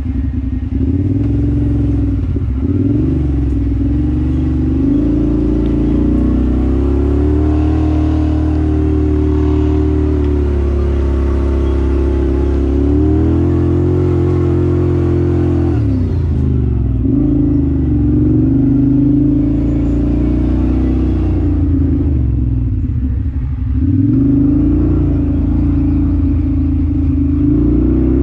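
Off-road vehicle's engine running steadily under load, revs rising and falling with the throttle, with a few brief drops in revs.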